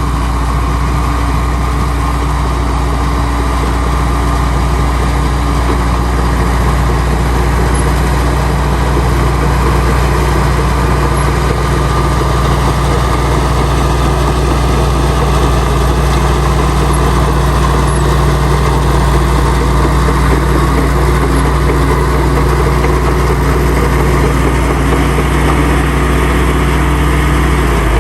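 Heavy diesel engine of earth-moving machinery running steadily at a constant speed, with a deep, even drone.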